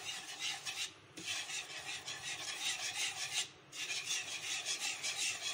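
Wire whisk scraping rapidly around the bottom of a non-stick frying pan, beating milk powder into milk, with two brief pauses about one second and three and a half seconds in.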